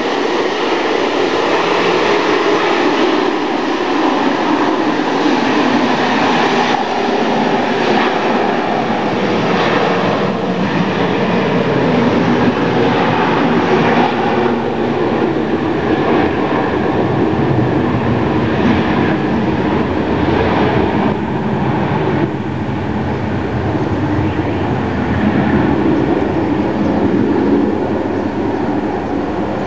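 Jet aircraft engines at takeoff power, a loud, steady rumble and roar that swells in at the start and holds with little change.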